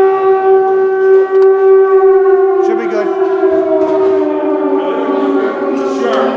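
A long siren-like wail that holds one pitch, then slides slowly lower from about three seconds in.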